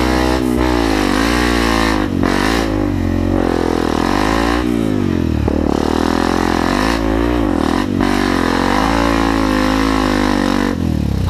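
Off-road trail motorcycle engine revving up and down over and over as it rides a steep dirt trail, its pitch falling and rising every second or two.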